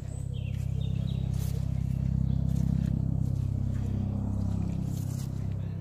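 Audi A4 engine idling with a steady low hum that grows louder over the first couple of seconds and eases near the end. A few faint crunches of footsteps on gravel.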